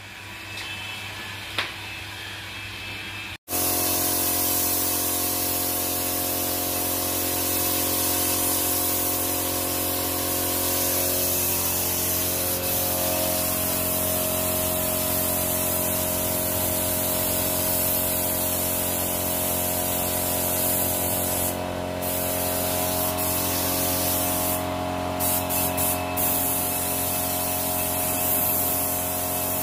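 Air spray gun hissing steadily as it sprays paint onto a bumper, over a steady hum. After a quieter opening of about three seconds, the hiss starts abruptly. It breaks off briefly about three-quarters of the way through and again several times soon after.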